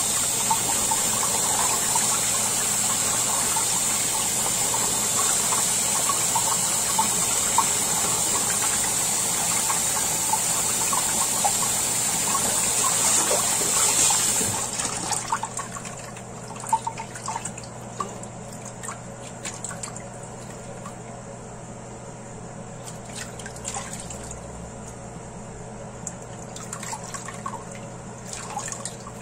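Kitchen tap running into a stainless steel bowl of water while lion's mane mushrooms are rinsed by hand. About halfway through the tap stops, leaving scattered splashes and drips as the soaked mushrooms are squeezed out over the bowl.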